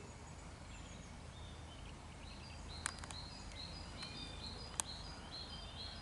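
Songbirds chirping and singing: short high notes repeated quickly, growing thick from about two seconds in, over a low steady rumble, with two sharp clicks.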